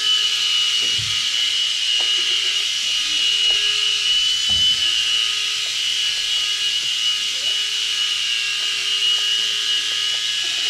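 Picoo Z mini RC helicopter's tiny electric rotor motor running with a steady, high-pitched whine. Two soft low thumps about a second in and between four and five seconds in.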